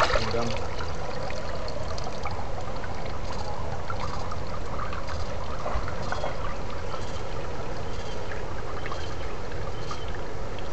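Water trickling and lapping in a shallow stream as someone wades through it, over a steady low rumble.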